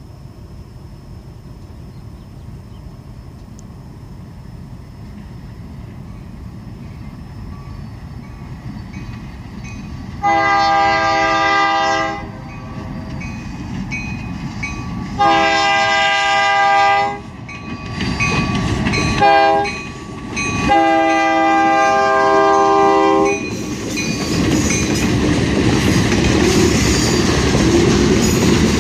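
EMD GP38-3 diesel locomotive approaching with a steadily building rumble, then sounding its chime air horn in the grade-crossing pattern: long, long, short, long. It then passes close, and the loud rush of its engine and the freight cars rolling by takes over near the end.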